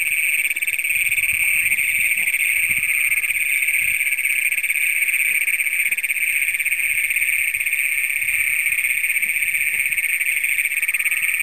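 A dense chorus of Great Plains toads calling, their long trills overlapping into one loud, steady, high-pitched buzz that never breaks.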